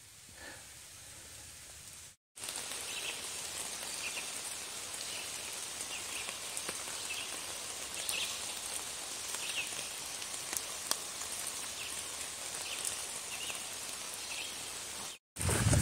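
Steady rain falling through forest leaves: an even hiss with scattered sharp ticks of single drops. It comes in about two seconds in, after a quieter moment.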